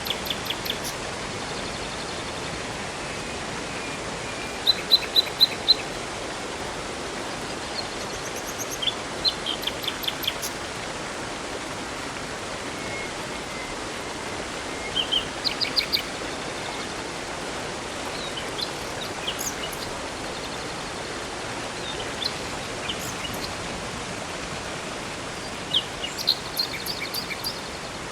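Steady rushing of flowing water from a river or waterfall, with songbirds chirping over it in short runs of quick high notes several times.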